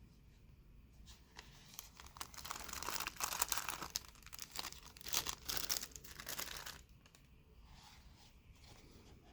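Packaging being unwrapped by hand: a few seconds of crinkling and tearing, loudest in the middle, then fading.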